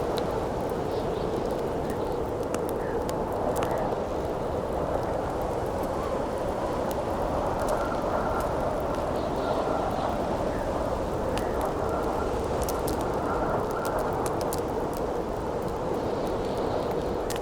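Howling wind blowing steadily, with a faint whistling tone now and then, over the scattered sharp crackles and pops of a burning wood campfire.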